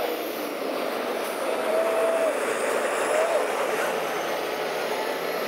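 Steady road traffic: cars and trucks driving past on a wide road, with two short steady tones about two and three seconds in.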